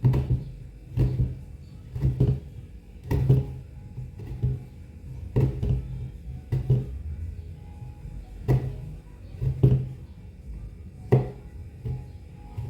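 Kitchen knife chopping a block of chocolate on a cutting board, a sharp knock with a dull thud under it roughly once a second.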